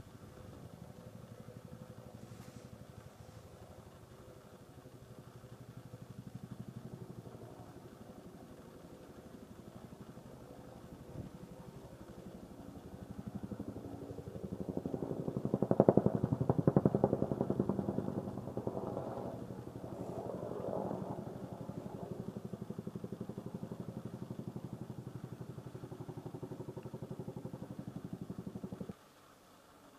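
AH-1Z Viper attack helicopter flying by, its rotor beat and turbine engines running steadily. The sound swells to its loudest about halfway through as the helicopter passes close, then holds steady and cuts off suddenly near the end.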